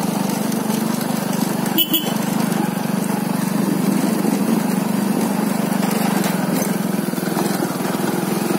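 Motorcycle engine running steadily while riding along a rough track, with a brief knock about two seconds in.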